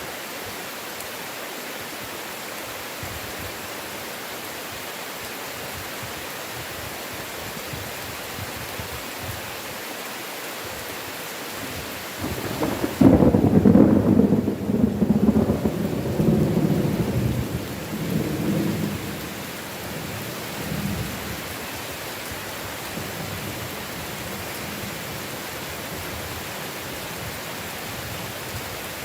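Steady rain hiss with a clap of thunder about thirteen seconds in, which rolls on in a few deep rumbles for several seconds before dying away.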